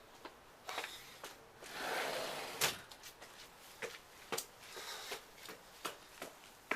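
Scattered footsteps and rustling of people walking outdoors, with a louder rustle about two seconds in and a sharp knock just after it.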